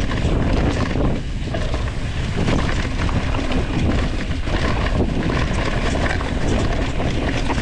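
Mountain bike riding a rocky singletrack: tyres rolling over dry leaves and rocks, with many small clicks and rattles from the bike. Wind noise on the handlebar-mounted camera's microphone runs underneath.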